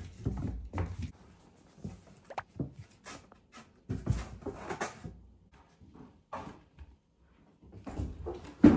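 Kittens playing and moving about: scattered light knocks, scrabbling and rustling, with a sharper knock near the end.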